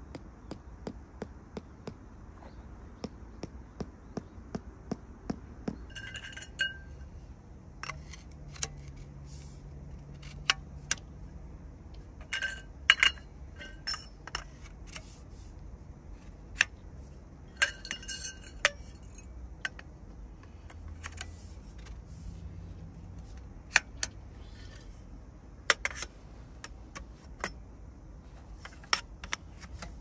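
Tent pole sections knocking and clinking together as they are handled and slotted into their ferrules: scattered sharp clicks, a few of them ringing briefly like metal.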